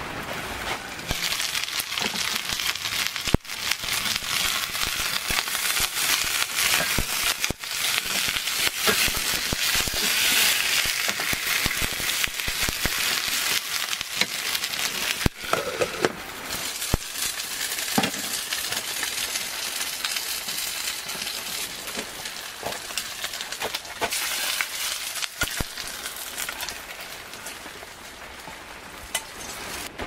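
Gyoza dumplings frying in a lidded pan on a butane camp stove: a steady, loud sizzle with small spitting pops, broken by a few short cuts.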